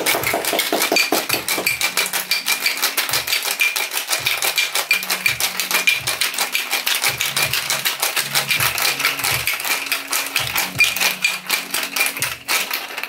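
Ice cubes rattling inside a stainless-steel cobbler shaker, shaken by hand in a quick, steady rhythm and not hard. The shaking stops near the end.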